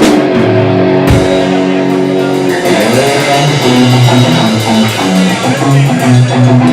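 Live garage rock band playing loud, with no singing: electric guitar and bass notes over drums, with hard drum and cymbal hits at the start and again about a second in.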